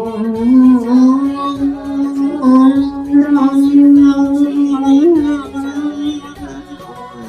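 A devotional Hindi bhajan being sung: one voice holds a long, slightly wavering note for several seconds with musical accompaniment, then fades near the end.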